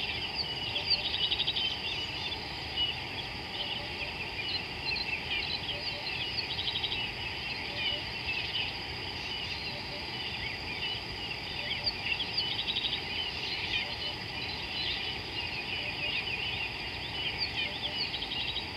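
Many birds calling at once, a busy mix of chirps and whistles, with one bird's rapid ticking trill coming about every five seconds, over a steady background hiss.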